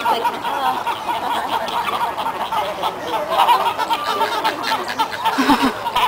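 A flock of flamingos honking, many calls overlapping at once.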